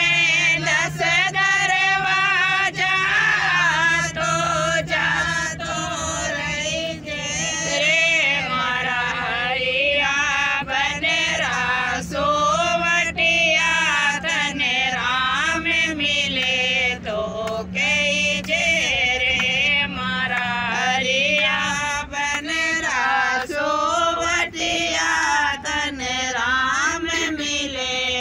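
A woman singing a devotional song, with other voices, men's among them, singing along in a group. A steady low hum underneath stops about three-quarters of the way through.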